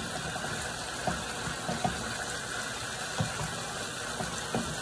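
Diced chicken breast sizzling in oil in a skillet, a steady hiss, with a few light knocks of a wooden spoon against the pan as it is stirred.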